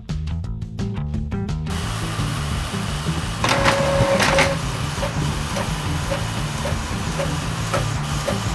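Background music with a steady beat over an Epson L3110 inkjet printer starting a test page. About three and a half seconds in, a louder motor whir lasts about a second. After it, the printer mechanism gives short regular ticks about twice a second as it prints.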